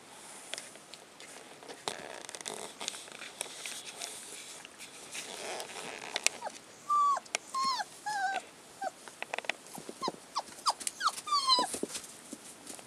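Five-week-old collie puppies play-fighting in a heap: scuffling and small growls, then from about halfway a run of short, high yelps and whines, each falling in pitch.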